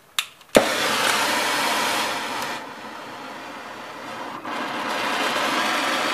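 Oxyacetylene torch lit with a sharp pop, then its flame hissing steadily. The hiss drops for a couple of seconds and grows stronger from about four and a half seconds in, as the flame is turned from a sooty yellow acetylene plume to a sharp blue oxyacetylene flame.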